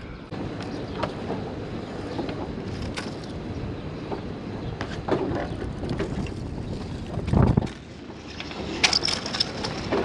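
Wind buffeting the microphone high up a sailboat's mast, with scattered light clicks and knocks from hands working the rigging and a heavy low thump about three-quarters of the way through.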